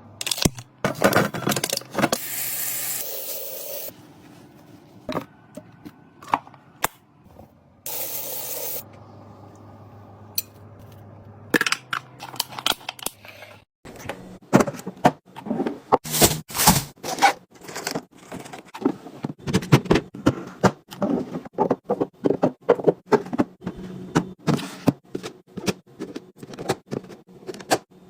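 Drinks and snack packs being handled and set down while a fridge is restocked: a busy run of clicks, clatters and scrapes. There are two short stretches of hissing noise, one about two to four seconds in and one around eight seconds.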